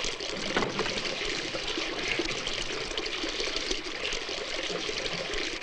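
Water running steadily from a tap, a constant rushing splash.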